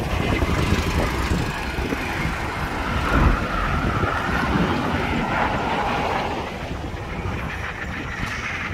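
Street traffic: cars and a motorbike driving past close by, one engine note dropping in pitch as it passes around the middle, over a steady low rumble of wind on the microphone.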